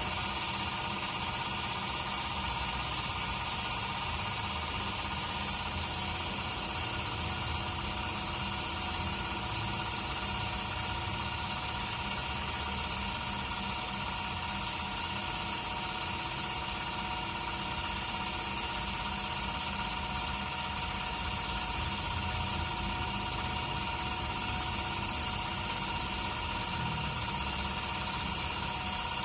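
Air spray gun hissing as paint is sprayed onto a car hood, the hiss swelling and easing every few seconds with each pass, over a steady mechanical hum.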